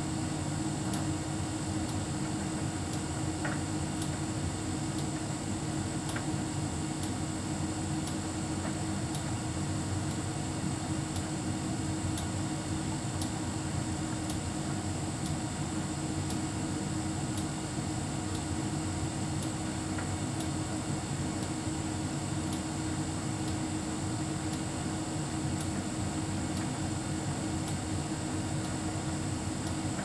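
Hotpoint heat pump tumble dryer running: a steady mechanical hum with faint ticks about once a second.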